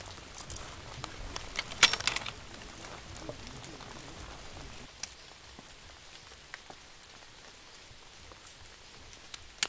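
Steady light rain falling, easing about five seconds in. About two seconds in, a brief burst of metallic clinks and rattles from aluminium tent poles being handled, and a single sharp click near the end.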